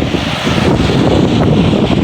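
Snowstorm wind gusting against the microphone: a loud, irregular low buffeting over a steady hiss.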